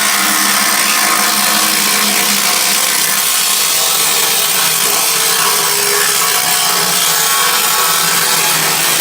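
Power tool cutting steadily into the steel casing of a Ford Focus ST factory muffler, a continuous harsh noise with no breaks.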